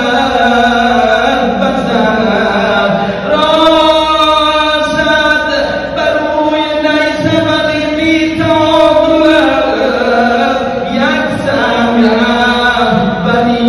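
Male voice chanting a noha, a Shia mourning lament for Imam Husayn, in long drawn-out notes that rise and fall, some held for about two seconds.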